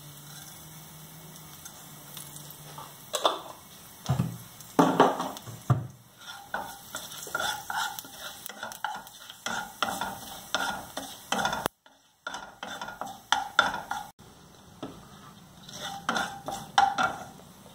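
White cumin seeds sizzling in a little hot oil in a kadai, stirred with a wooden spatula that scrapes and knocks against the pan in an irregular run of strokes. It is the tempering stage, the seeds frying in the oil before anything else is added.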